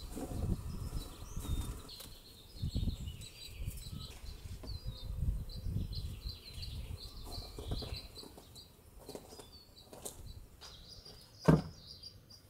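Uneven rustling and low rumbling noise as zucchini are picked among the plants, with small birds chirping high and often in the background. A single sharp thump near the end, the loudest sound, as a zucchini is set down on the paving.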